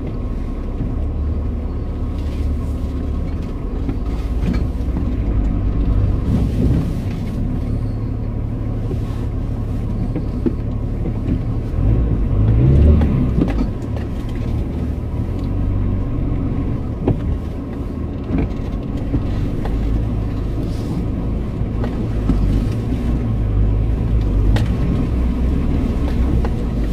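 Off-road 4x4 engine running as the vehicle drives a rough track, heard from inside the cab, with occasional short knocks. The engine revs up briefly about twelve seconds in.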